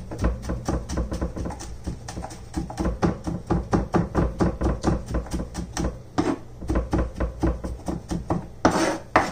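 Santoku-style knife rapidly fine-chopping garlic on a wooden cutting board: a steady run of quick taps of the blade on the wood, several a second, with a short lull about six seconds in and one louder stroke near the end.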